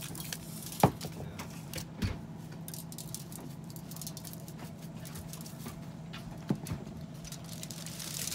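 Light rustling and crinkling of aluminium foil as hands stuff and handle a whole fish lying on it, with a few sharp taps, the loudest about a second in. A steady low hum runs underneath.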